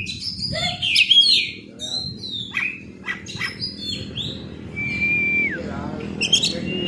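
Oriental magpie-robin (kacer) singing: a fast, varied run of chirps and sweeping whistled notes, with one long held whistle about five seconds in that drops away at its end.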